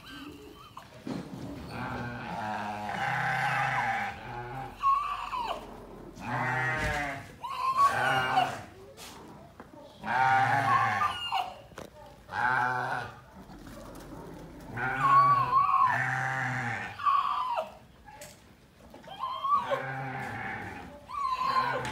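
Goats and sheep bleating, one call after another, about ten in all, several with a quavering, wavering pitch.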